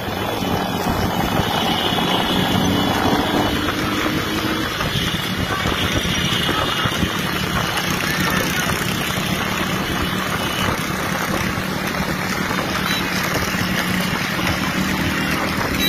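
Steady din of vehicle engines running, with a low steady hum under it.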